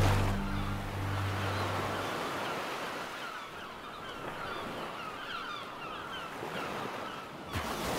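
Ocean surf ambience, a steady wash with many short high chirps over it, under the last low notes of a music track that fade out about two seconds in. A brief louder rush comes near the end.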